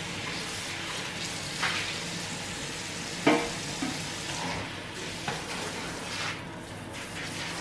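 Kitchen tap running into a sink while a stainless steel pot is rinsed, with a few knocks of the pot against the sink, the loudest about three seconds in.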